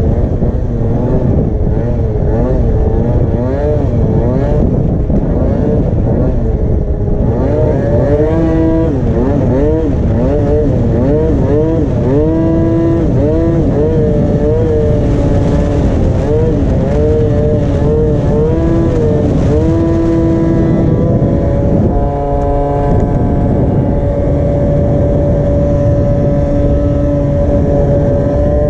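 MBK Booster scooter's tuned Minarelli two-stroke engine under way, its revs rising and falling again and again, then holding steady for the last few seconds, over a heavy rush of wind noise.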